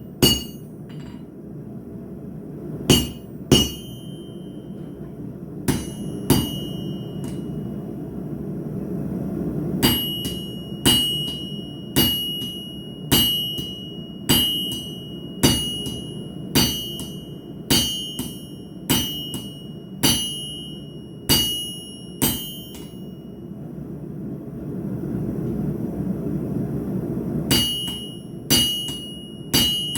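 Blacksmith's hammer striking hot steel on an anvil, each blow followed by a short metallic ring. A few scattered blows, then a steady run of about one blow a second for over ten seconds, a pause of a few seconds, and the blows resume near the end, over a steady low rushing noise that grows louder in the pauses.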